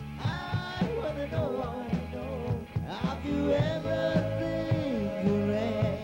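Rock song playing: a voice singing over guitar and a steady drum beat, holding one long note in the second half.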